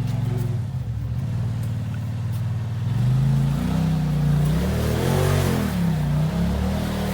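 Off-road vehicle's engine running steadily under load, then revving up and down repeatedly from about three seconds in as it climbs a steep rock chute.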